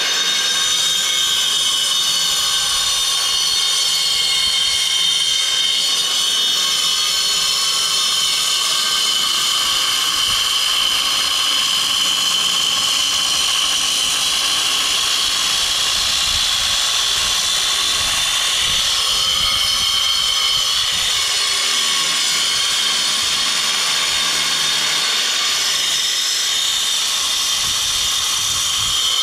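Electric angle grinder cutting into a concrete block: a loud, steady high whine over a gritty grinding rush, its pitch sagging slightly lower in the last third as the blade works through the block.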